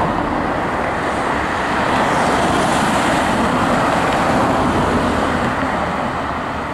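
Electric tramcar running slowly along the track, a steady noise of wheels on rail mixed with road traffic, swelling slightly midway.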